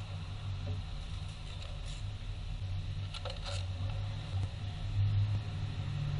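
Honda CR-V's K20A4 2.0 L four-cylinder engine running steadily, a low even hum, with a few light clicks a little past halfway.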